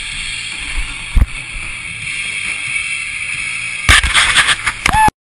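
Running noise on a body-worn camera: steady wind-like rush on the microphone with a sharp knock about a second in, then a burst of loud knocks and rustling near the end that cuts off suddenly.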